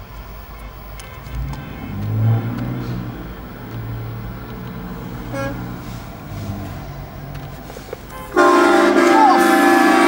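A pickup truck's train horn blasts about 8.4 s in: a loud, steady chord of several tones held for about a second and a half. Before it there is a low rumble of heavy truck engines.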